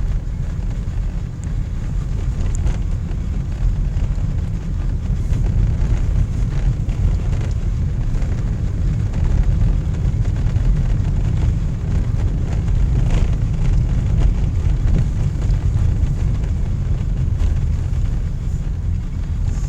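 A car driving on a snowy winter road: a steady low rumble of engine and tyres, with a few faint clicks.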